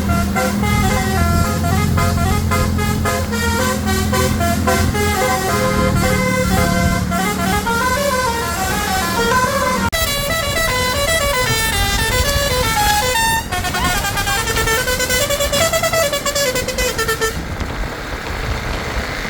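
Basuri telolet musical horn of an Indonesian coach (MSM Asyrof 'Baby Boss') playing a quick tune, several horn notes at once stepping up and down, with the bus engine running underneath for the first half. The tune stops about seventeen seconds in, leaving road noise.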